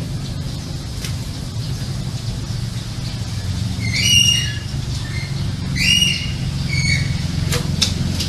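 Rooster squawking, two loud shrill cries about four and six seconds in and a fainter one near seven, over a steady low hum, with a couple of sharp clicks near the end.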